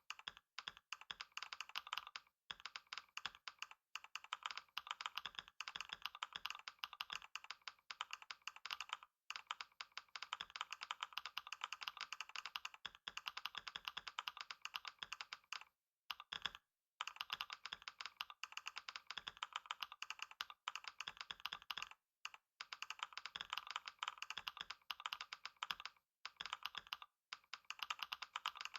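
Fast, continuous typing on a computer keyboard during a typing test: a rapid stream of key clicks, broken by a few short pauses, the longest about a second around the middle.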